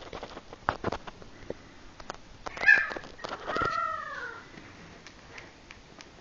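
Kitten mewing once about three seconds in, a short call that falls in pitch. A few light taps come before it.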